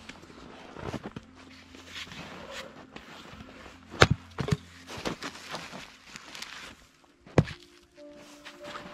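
Split firewood logs knocking together as they are stacked. About four seconds in, an axe strikes a log on a chopping block and splits it with a sharp crack, followed by lighter knocks. Near the end comes another heavy thud.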